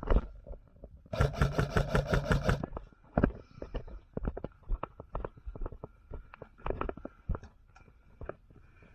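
Airsoft electric gun firing a full-auto burst of about ten rapid shots a little over a second in, followed by scattered light clicks and knocks of gear and footsteps.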